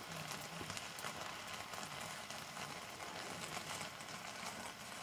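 Open wood fire crackling under a boiling pot: a steady hiss sprinkled with many small pops and crackles.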